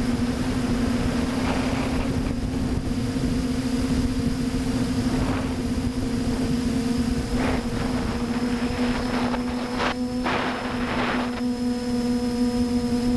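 Quadcopter motors and propellers in flight: a steady buzzing drone at one constant pitch with overtones, over a rushing of air and wind noise that swells briefly a few times, most strongly about ten seconds in.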